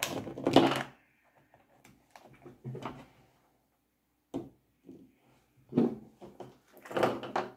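Cardboard and plastic toy packaging handled on a tabletop: bursts of scraping, tapping and rustling, loudest in the first second and again near the end.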